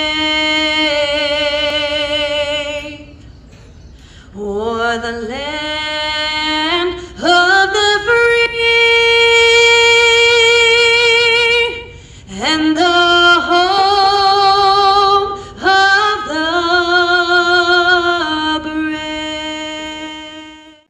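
A single voice singing unaccompanied: long held notes with a wavering vibrato, sliding up into each phrase. It is broken by short pauses and fades out near the end.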